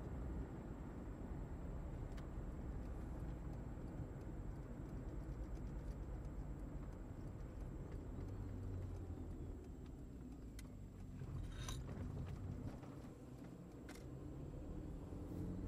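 Fiat Punto II's 1.2-litre eight-valve four-cylinder petrol engine running steadily with tyre and road noise, heard from inside the cabin while driving. The sound dips briefly about thirteen seconds in, and a few sharp clicks come near the end.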